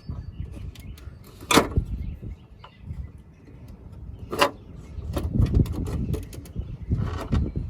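Fog light wiring connectors being handled at the truck: low scuffing and rustling, with two sharp clicks about three seconds apart as plugs are worked apart or snapped together.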